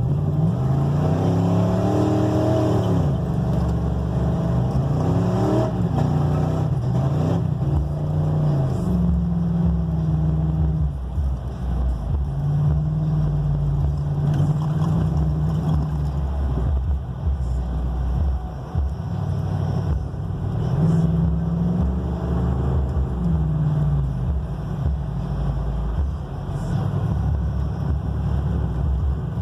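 A 1999 Ford F-150's engine running while driving, its pitch climbing and dropping several times as the revs change, with level stretches between.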